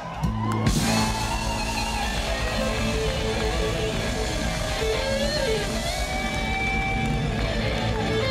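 Live funk band playing loudly through a concert PA, electric bass and electric guitar over drums and keyboards. The full band comes in together with a sharp hit right at the start, after a brief drop in sound, and plays on with held notes.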